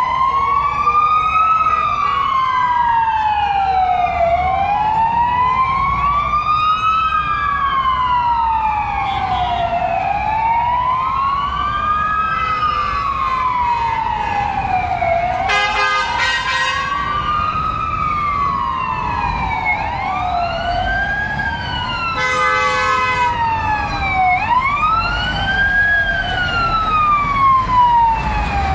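Fire truck sirens wailing up and down, about one rise and fall every four seconds, with more than one siren overlapping; near the end the sweeps come quicker. Two short horn blasts sound, around the middle and about two-thirds through, over the rumble of street traffic.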